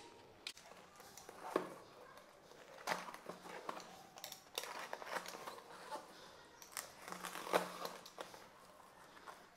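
A cardboard box being opened with a box cutter: faint, scattered scrapes of the blade through packing tape and rustles and crinkles of the cardboard flaps being handled.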